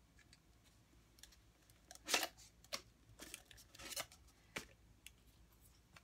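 Red plastic party cups being handled and pulled off a stack: a string of short crackling taps and rustles, the loudest about two seconds in and again around four seconds.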